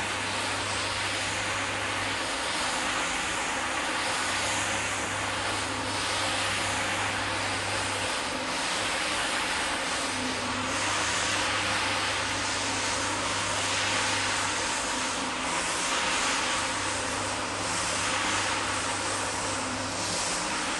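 Rotary floor scrubber running, its spinning brush scrubbing a soapy wet rug with a steady whirring hiss; a low hum underneath drops out and comes back several times.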